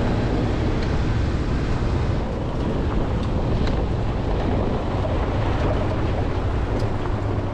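Jeep Wrangler driving along a dirt road: steady engine and tyre rumble on the gravel, with wind buffeting the microphone.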